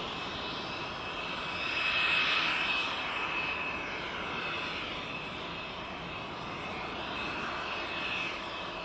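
Jet engine whine of a taxiing aircraft: a steady high whine over a rushing hiss, swelling about two seconds in and then easing off.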